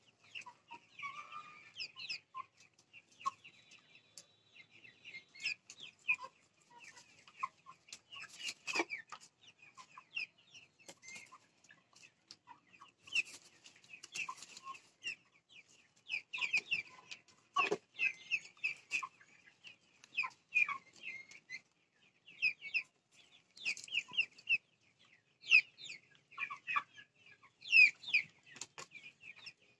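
A flock of Vanaraja chickens clucking in many short, overlapping calls, with a couple of sharp knocks about nine and eighteen seconds in.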